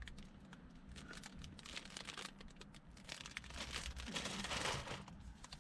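Thin clear plastic wrapper around a bakery roll crinkling as it is handled. It makes a run of small crackles that grows denser about four seconds in.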